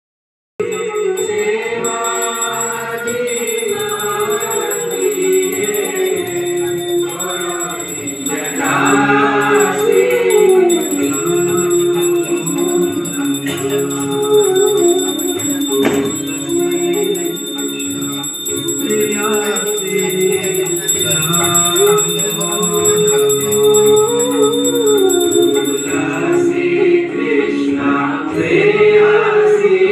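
A song playing: singing voices carrying a melody over musical accompaniment, with phrases that rise and fall and recur every few seconds.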